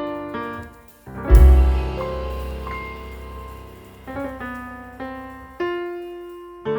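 Background music: a piano playing a slow pattern of struck notes, with a deep bass hit about a second in.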